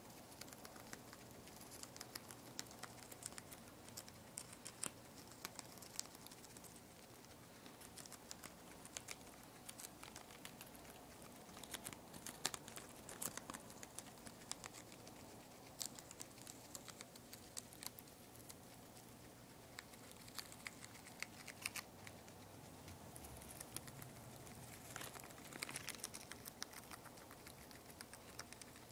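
Two-month-old guinea pig nibbling and tearing a lettuce leaf: faint, irregular crisp crunching clicks.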